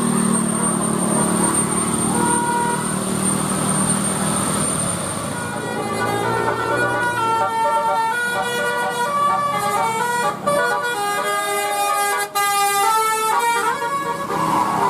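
Bus telolet "basuri" multi-tone musical horn playing a tune in short stepped notes from about six seconds in until near the end, with a sliding siren-like tone partway through. Before that, mostly a noisy vehicle and street rumble with a few brief horn tones.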